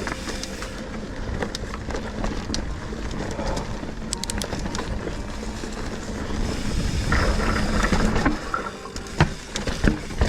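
Mountain bike rolling over a dirt trail: a steady low rumble with many short rattles and clicks, getting louder about seven seconds in, with a few sharp knocks near the end.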